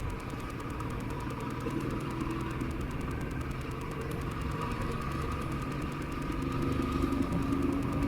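Royal Enfield motorcycle engine running steadily while the bike is ridden along the road.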